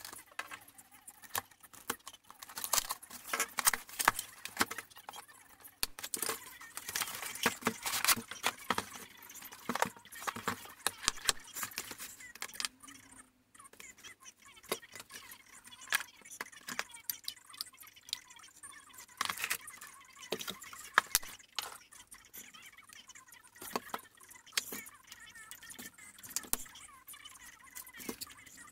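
Unpacking noise: a cardboard box and a hard plastic carry case being handled, with small accessories and a staple pack picked up and set down on a table, giving many irregular clicks, taps and rustles. There is a brief lull about halfway.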